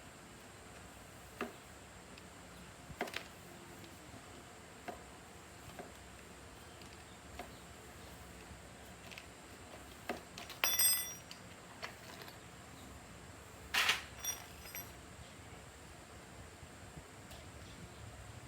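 Scattered light clicks and taps of metal parts and tools being handled, with two louder, brief ringing metallic clinks, one just past the middle and another about three seconds later.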